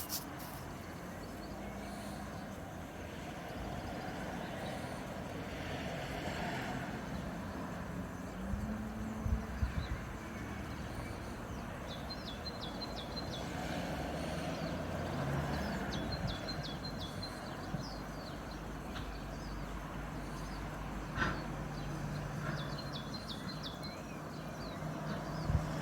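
Locomotive standing at a station with its engine running in a steady low rumble. Short bursts of high bird chirps come every few seconds, and there is a single sharp knock near the end.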